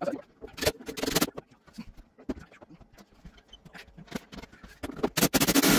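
Hard clacks and knocks of tools being handled and set down on a wooden cabinet, with a short run of dense clatter about a second in and a louder rapid clatter near the end.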